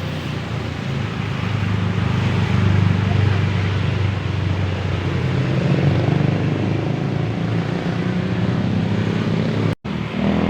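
Heavy diesel engine of a large bus running with a steady low rumble, growing louder a couple of seconds in and easing off a little later. The sound cuts out for a moment near the end.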